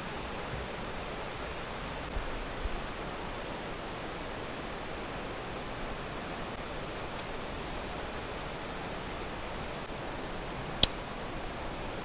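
Steady rush of a rocky, shallow river running over rapids, with two soft thumps about two seconds in and one sharp click near the end.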